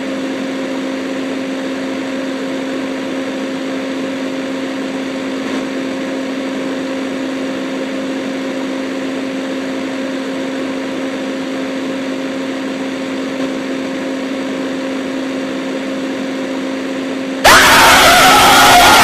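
A steady electronic hum on one low pitch, with a second tone an octave above it, over a hiss of static. Near the end it cuts abruptly to a much louder blast of harsh noise with wavering tones sliding up and down.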